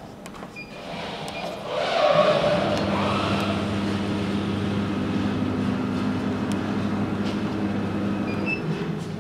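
The CNC plasma cutting machine starts up about two seconds in and runs with a steady hum and hiss, easing off near the end. A short beep from the controller keypad comes near the end.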